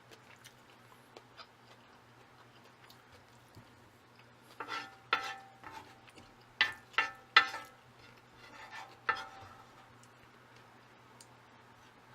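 A spoon clinking and scraping against a dish of jjajang ramen noodles. About nine sharp knocks come in a cluster in the middle, some leaving a brief ringing tone.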